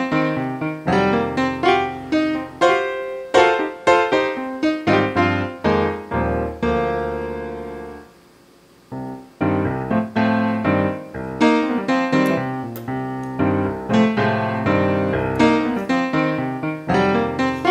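Background piano music, a run of struck notes. About two-thirds of the way through, a held chord fades into a brief pause before the playing resumes.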